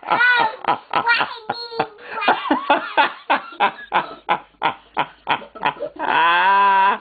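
Toddler laughing uncontrollably in rapid repeated bursts, several a second, then one long drawn-out cry of laughter near the end.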